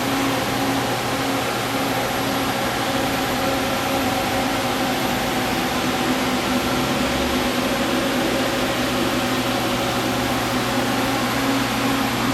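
Steady hum and fan noise of a powered-up Fadal VMC 4525HT vertical machining center standing idle, with a few steady low hum tones.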